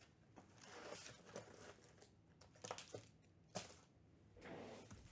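Faint handling noise of packaging: a few short crinkling, tearing rustles and light clicks.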